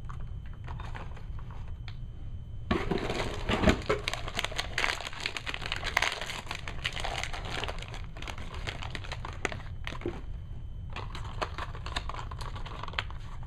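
Clear plastic figure packaging crinkling and crackling as it is handled and opened. It starts a few seconds in, pauses briefly, then crinkles again near the end.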